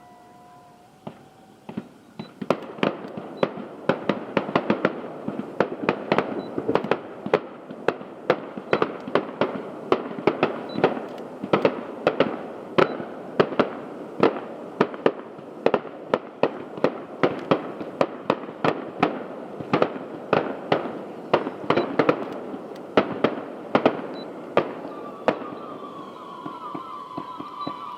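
Aerial fireworks going off in a rapid, sustained barrage of bangs, two or three a second, starting about two seconds in. Near the end a falling whistling tone rises over the bangs.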